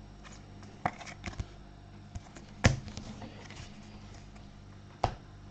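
A few short light taps and clicks of trading cards being handled and set down on a table, the loudest about two and a half seconds in, over a faint steady hum.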